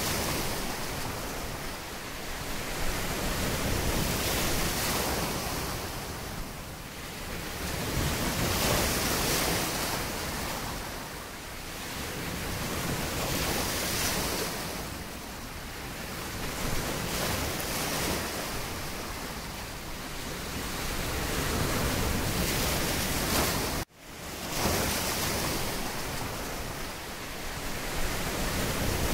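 Ocean surf: a steady wash of waves that swells and ebbs every few seconds. The sound drops out abruptly for an instant about three quarters of the way through, then fades back in.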